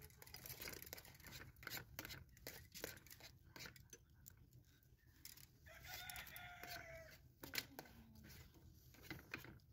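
A rooster crows once, faintly, about six seconds in, over soft scattered clinks and taps of tea glasses and dishes.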